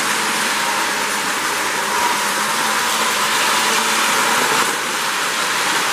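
Postwar Lionel 736 O-gauge steam locomotive and its ten-car train running on the track: a steady whir of the motor and wheels.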